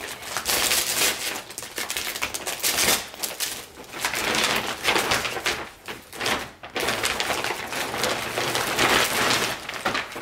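Plastic shipping bag crinkling and rustling as it is pulled open and off a packaged item by hand, in irregular bursts with a brief lull about six and a half seconds in.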